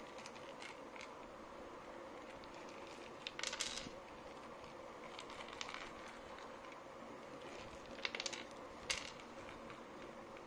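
Dried red kidney beans clicking and rattling against each other and across a wooden tray as a stick pushes them. The clicking comes in several short spells, loudest about three and a half seconds in and again around eight to nine seconds in, over a steady faint hum.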